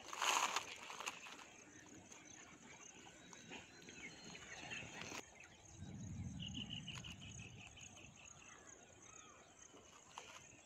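Outdoor rural ambience: a steady high insect drone, with a bird's quick run of chirps about six seconds in. There is a brief loud noise at the very start and a low rumble a little after six seconds.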